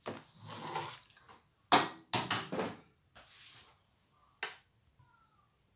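Handling noises: two sharp clicks about three seconds apart, with short rustling and knocking sounds around them.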